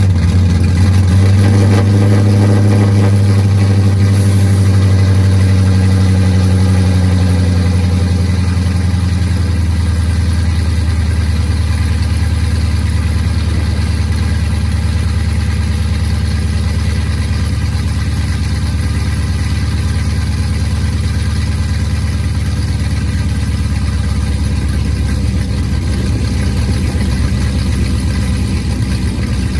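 LS-swapped Dodge Charger Hellcat's 406-cubic-inch V8 idling just after starting: a fast, loud idle for the first ten seconds or so that then settles into a steady, lower idle.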